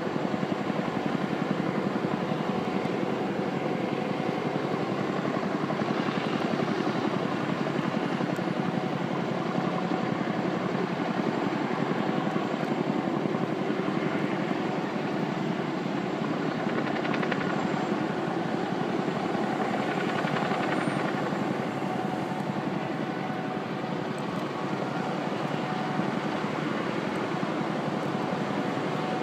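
Helicopters in flight, their rotors and turbines running steadily: a Boeing 234 Chinook twin-rotor heavy helicopter with smaller AS-365 Dolphin helicopters, a continuous fast rotor beat.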